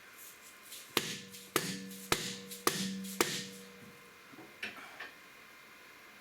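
A hammer strikes metal five times, about two blows a second, each blow ringing briefly. A few softer knocks follow. The blows are likely driving parts of a freshly resealed backhoe hydraulic cylinder into place.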